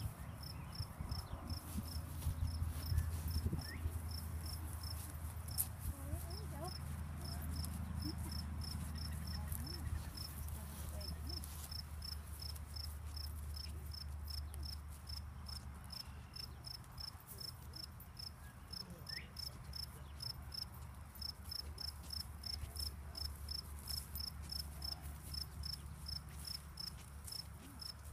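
An insect chirping steadily in a regular train of short, high chirps, about two a second, over a low steady rumble.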